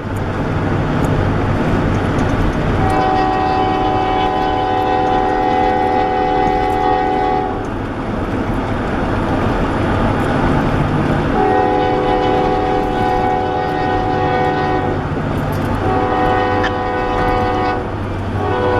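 Freight locomotive's multi-chime air horn sounding a chord in two long blasts, then a shorter one, with a fourth starting at the very end: the long-long-short-long pattern blown for a grade crossing. A steady low rumble of the moving train and road noise runs underneath.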